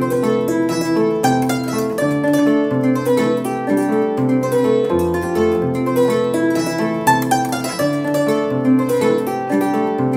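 Solo kora, the West African harp-lute, plucked in a continuous flow: a repeating low bass figure under quick, busy melody notes.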